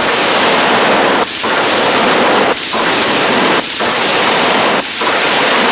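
Fully automatic firearm fired in long bursts of about a second each, with short pauses between, five in all; the shots run together into a continuous loud crackle.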